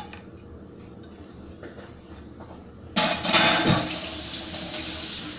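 A kitchen sink tap is turned on with a clatter about three seconds in, and water then runs steadily into the sink as a knife is rinsed.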